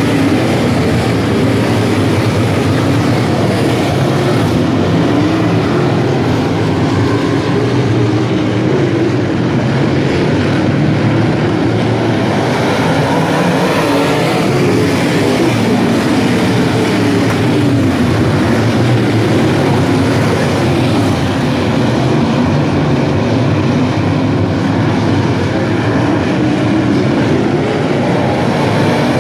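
A field of dirt-track modified race cars running at racing speed, their V8 engines loud and continuous, with several engine notes rising and falling over one another as the cars pass.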